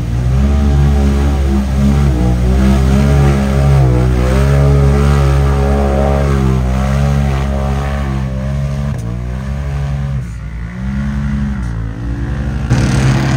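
Mud-racing truck's engine revving hard under load, its pitch rising and falling repeatedly as it churns through a mud hole. The revs sag about ten seconds in, then surge again near the end.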